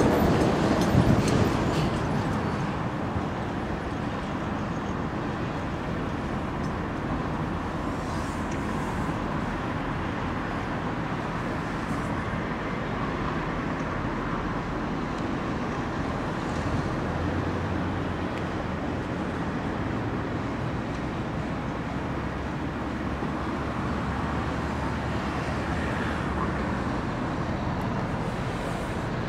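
A motor barge's diesel engine running steadily as the barge moves slowly ahead, a low hum under a steady rush of outdoor noise, a little louder in the first couple of seconds.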